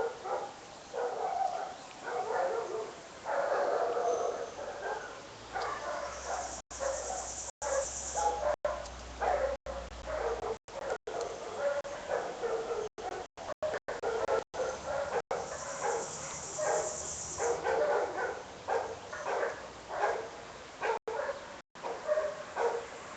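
Animals calling in quick, repeated short bursts, with several brief dropouts where the sound cuts out completely.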